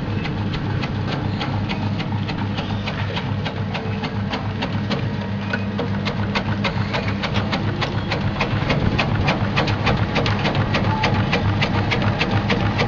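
Krupuk (cracker dough) slicing machine running as a log of dough is fed through it: a steady motor hum with a quick, regular ticking from the rotating slicer, getting a little louder in the second half.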